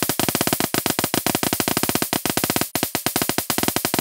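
Electric arc crackling and buzzing between the two podracer engines: a fast, uneven crackle with a steady hum underneath, briefly dropping out near three seconds in.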